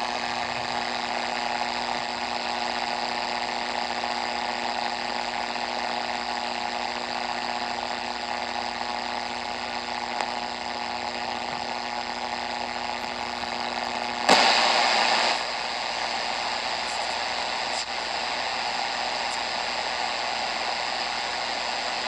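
Philips D1835 portable radio on the shortwave band, hissing static from its speaker between stations, with a steady low hum underneath. About fourteen seconds in, a louder rush of noise lasts about a second and the hum stops; the static then runs on.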